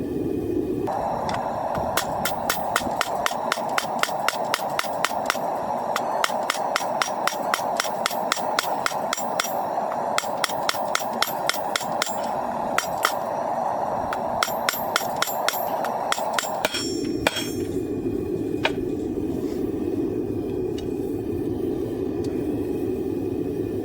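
Blacksmith's hammer striking hot coil-spring steel on an anvil: a long, rapid, steady run of ringing blows lasting about fifteen seconds, then a few lighter taps, over a steady rushing noise.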